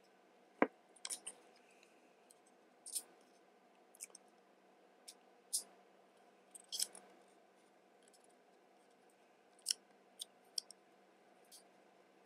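Small parts of an airsoft Glock slide and its blowback housing unit being handled and worked into place by hand: a dozen or so faint, irregular clicks and light taps, the sharpest about half a second in.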